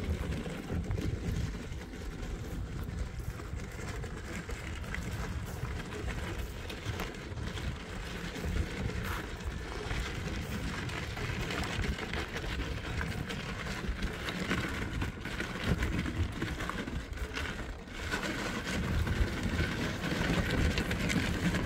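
A vehicle on the move: a steady, rough rumble of engine and road noise, dipping briefly near the end.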